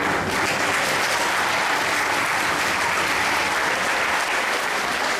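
Audience applauding: dense clapping that breaks out suddenly and keeps up at a steady level.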